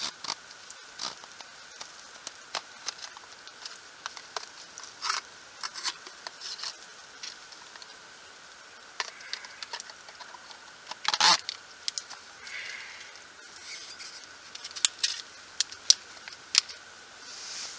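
Ribeye steak cooking on a small wire grill over campfire embers: the fire crackles with irregular sharp pops and ticks, the loudest about eleven seconds in, and a few short sizzling hisses.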